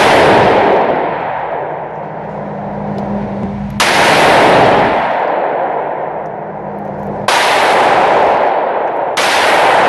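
Gunshots echoing in an indoor shooting range: three sharp reports a few seconds apart, the last two about two seconds apart, each followed by a long reverberant tail, with the tail of another shot fading at the start.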